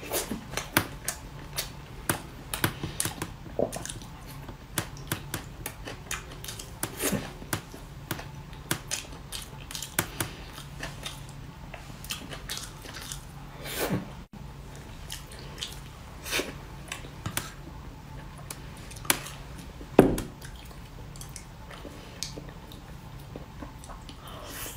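A person eating close to the microphone: chewing and wet mouth smacks with many short, irregular clicks, and one louder knock about twenty seconds in.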